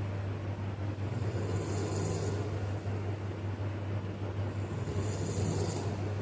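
Person snoring in sleep: two slow breaths, each swelling to a hissing peak, about two seconds in and again near the end, over a steady low hum.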